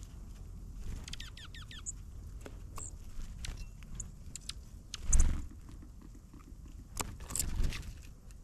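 Small wild birds: a short run of quick falling chirps about a second in, many light taps and pecks, and two louder rustling thumps at about five and seven seconds.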